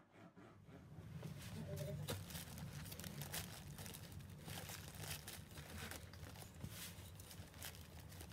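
Small hand trowel scooping and scraping through potting soil in a plastic-lined basket, the plastic liner crinkling, over a low steady hum. The irregular scratchy rustles start about a second in.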